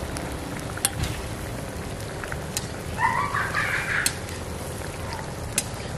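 A steel ladle clinking against the wok and bowl now and then as soup is ladled out, with liquid pouring. About three seconds in, a short animal call lasting about a second is the loudest sound.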